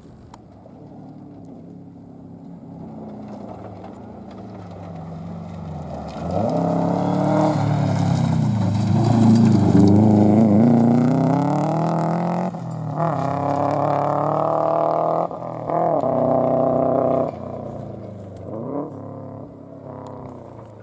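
Subaru Impreza rally car's engine approaching from a distance, passing close by at full throttle, then accelerating away with three quick gear changes, the pitch climbing between each, before fading.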